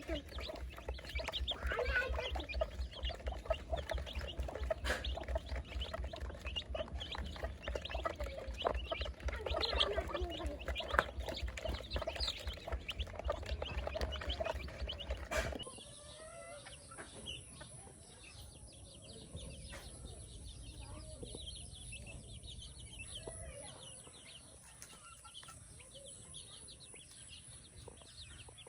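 Chickens clucking, many short calls overlapping. About halfway through the sound changes abruptly to quieter, sparser calls over a steady high-pitched tone.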